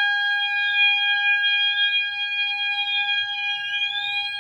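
Two fire alarm horns sounding together: one holds a steady high tone, while an FCI horn strobe sweeps slowly up and down in pitch, about once every two seconds.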